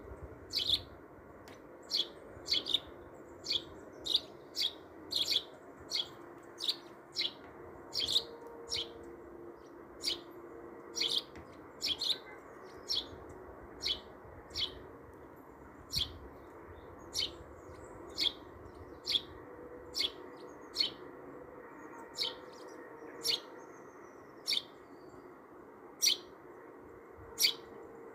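A small bird chirping over and over, one or two short, sharp high chirps a second.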